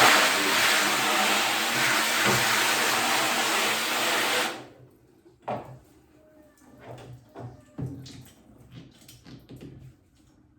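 Water spray rinsing a silkscreen, washing out the loosened ink and citrus cleaner. It runs for about four and a half seconds and cuts off suddenly, followed by light knocks and handling sounds.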